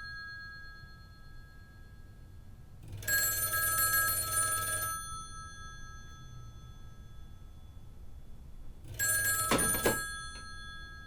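Rotary telephone's bell ringing in rings of about two seconds: one ring fading out at the start, a full ring about three seconds in, and a third ring about nine seconds in that is cut short by a clatter as the handset is lifted.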